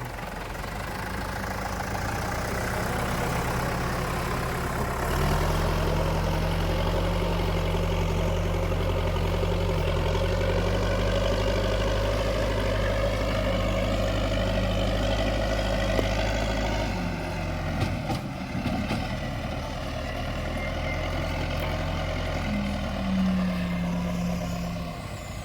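Escorts Digmax backhoe loader's diesel engine running steadily. It picks up under load about five seconds in, drops back around seventeen seconds, and revs up briefly again near the end.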